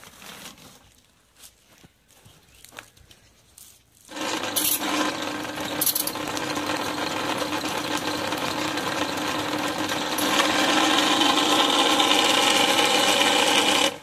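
A few light handling clicks, then about four seconds in a Ridgid K-1500 sectional drain-cleaning machine starts and runs steadily, its spinning cable whipping the blue jetter hose wrapped around it at the drain opening. The running gets a little louder about ten seconds in.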